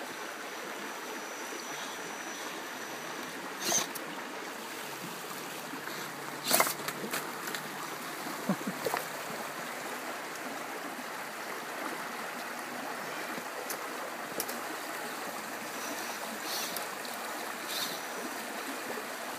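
Steady rush of flowing river water, with a few sharp clicks and knocks scattered through.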